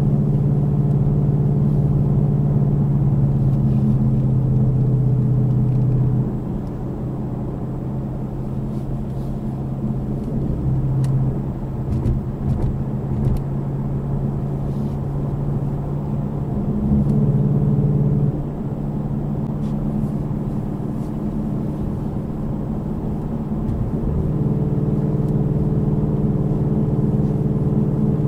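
Car driving on a highway, heard from inside the cabin: a steady engine hum over road noise. The hum drops and quietens about six seconds in, then comes back up in steps later on.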